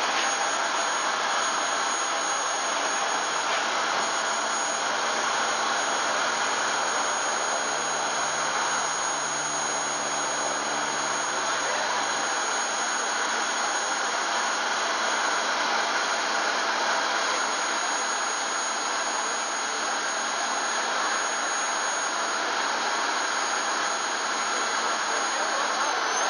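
Steady jet-turbine whine and rush from a parked Lockheed C-5B Galaxy, with a constant high-pitched whistle over it.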